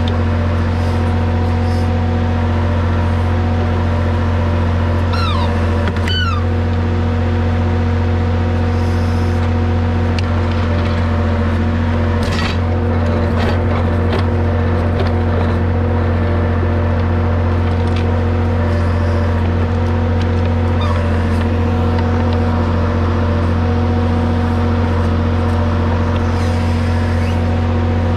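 Massey Ferguson MF30E tractor's Perkins diesel engine running steadily at a fixed speed while it powers the backhoe, with a couple of brief high squeaks about six seconds in.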